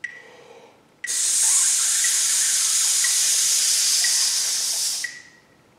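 A man sizzling a 'ts' through his teeth for four beats after a quick one-beat breath in: a steady, even hiss that stops about a second before the end. This is the brass sizzle breathing exercise, with the air kept consistent against the back pressure. Faint ticks come once a second throughout.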